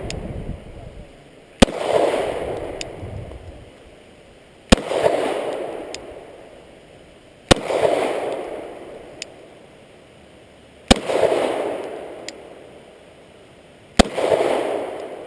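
Glock pistol fired five times, slow aimed shots about three seconds apart, each crack followed by an echo that dies away over a second or more. A faint click follows most shots.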